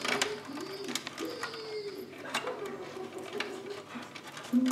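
Light clicks and rattles of wires and plastic connectors being handled inside an opened Krups espresso machine, over a low wavering tone that comes and goes.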